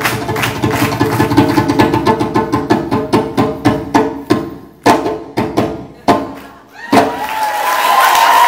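Fast djembe drumming, a dense run of hand strokes that breaks off about five seconds in into a few single hard accented strokes spaced apart, closing the piece. The audience starts cheering and whooping near the end.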